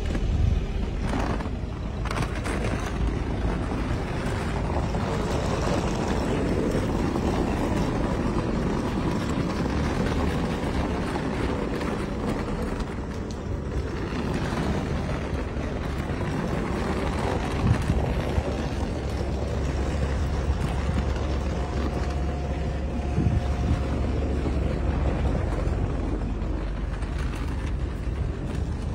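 Street traffic noise from cars idling and creeping in a jam, a steady low rumble with no single loud event.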